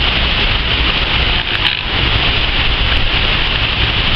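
Steady rushing noise of a waterfall, falling water pouring without a break.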